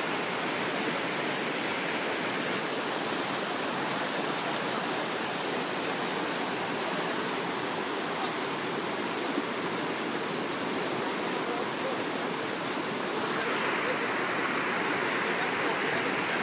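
River rapids rushing over and around rocks: steady white-water noise, a little louder in the last few seconds.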